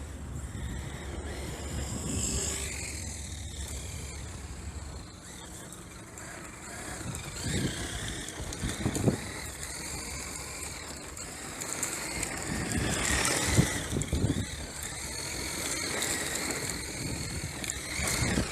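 Brushless electric motor of a Traxxas X-Maxx RC monster truck running on 6S power, whining up and down in pitch as it speeds up and slows, over tyre noise on pavement. A few short thumps fall in the middle of the run.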